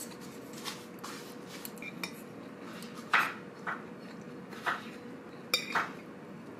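A metal fork and spoon clinking and scraping against a ceramic plate as the last of the food is gathered up: a few short sharp clinks, the loudest about three seconds in.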